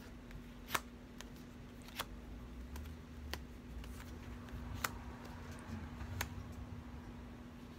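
Oracle cards being handled and shuffled in the hands: about five light clicks and snaps, spaced a second or so apart, over a faint steady hum.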